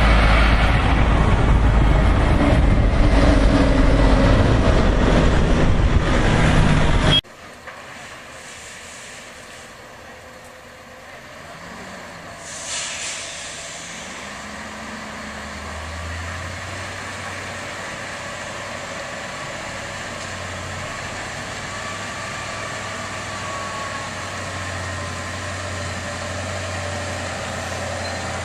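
Heavy truck engine running loud, cut off abruptly about seven seconds in. A quieter stretch follows, with a brief hiss and then a low, steady engine hum that slowly grows louder.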